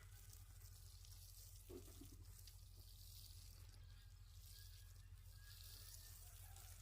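Near silence: faint background tone with a steady low hum.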